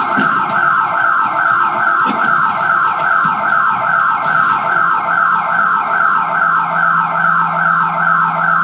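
Burglar alarm siren sounding after an attempt to force the door, a loud electronic wail made of rapid falling sweeps repeating several times a second without a break.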